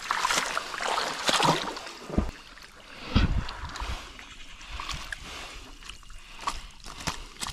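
Water sloshing and splashing in uneven surges, with two dull low thumps about two and three seconds in.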